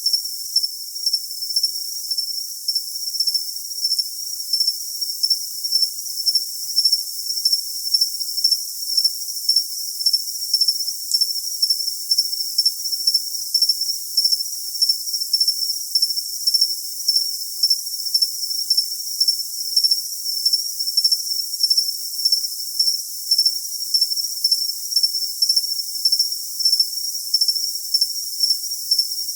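Cricket chirping: a high-pitched chirp repeated evenly, about two a second, over a high hiss.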